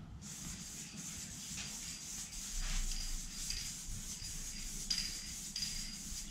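Aerosol can of black spray paint hissing steadily as a light guide coat is misted on before sanding.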